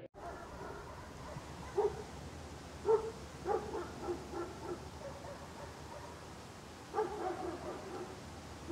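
A dog barking faintly: a run of short barks a couple of seconds in, then a few more about seven seconds in.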